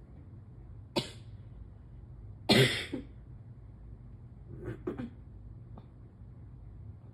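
A person sneezing from morning allergies: a short sharp burst about a second in, the loudest sneeze about two and a half seconds in, then two fainter bursts close together around five seconds.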